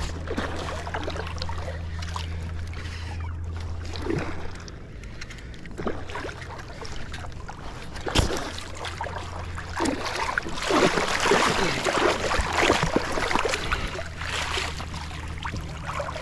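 Water splashing and sloshing as a hooked smallmouth bass is fought in shallow river water, loudest from about ten to thirteen seconds in. A steady low hum runs underneath.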